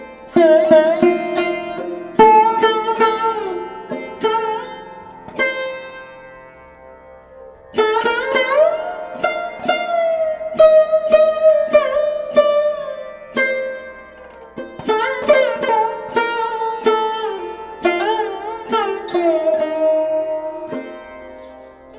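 Background instrumental music led by a plucked string instrument in a sitar-like style, with bending notes in phrases and a quieter stretch about a third of the way in.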